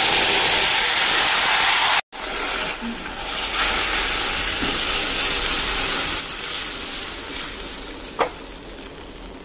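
Hot water poured into a kadai of hot mustard oil with nigella seeds, setting off a loud, steady sizzling hiss. After a brief break about two seconds in, the pouring and hissing carry on and slowly get quieter.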